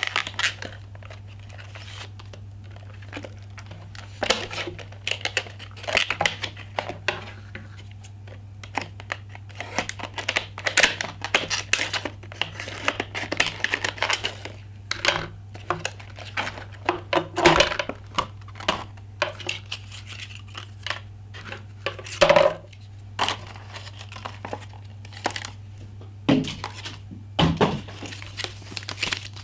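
Stiff clear plastic clamshell packaging crackling, crinkling and snapping as it is pried apart and cut open with scissors. There are a few louder knocks where the freed pieces are set down on a table.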